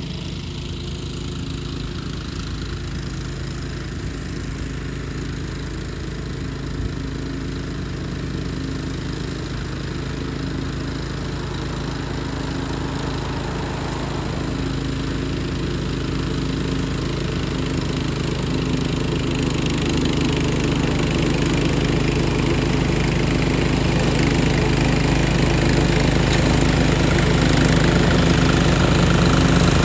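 Cub Cadet 760 ES 33-inch walk-behind mower running steadily as it cuts grass, growing gradually louder as it comes closer.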